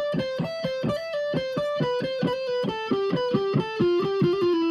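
Solo electric guitar playing a lead lick: a quick run of single notes that steps down in pitch and settles on a held note near the end.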